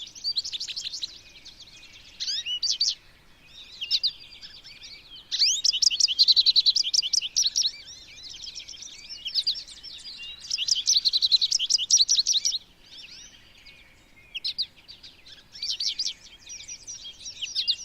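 Several American goldfinches calling and singing: bursts of rapid, high twittering song, with two long phrases about five and ten seconds in and shorter calls between them.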